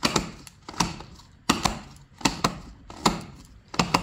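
Sharp plastic clicks, about one to two a second at uneven spacing, as a Husqvarna R25 trimmer head is turned by hand in its direction of rotation to wind trimmer line into it.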